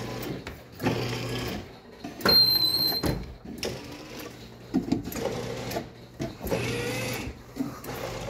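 Small electric drive motors of a water race carnival game moving the racing units along the track, running in stretches of about a second that start and stop, with clicks between them. A short high-pitched tone sounds about two seconds in.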